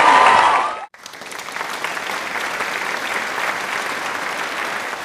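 Crowd cheering and shouting, cut off sharply about a second in. Then applause fades in and runs on steadily.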